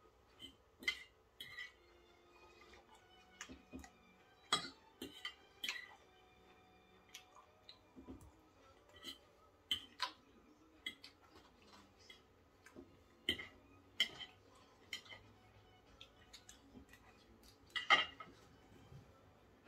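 Knife and fork clinking and scraping on a plate while cutting food: irregular sharp clinks about once a second, with the loudest clink near the end.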